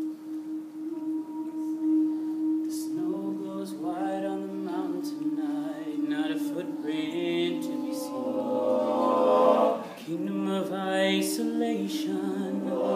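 All-male a cappella group singing. A single voice holds a long note, then the other voices come in underneath about three seconds in with sustained chords that swell. The chords break off briefly near ten seconds and resume.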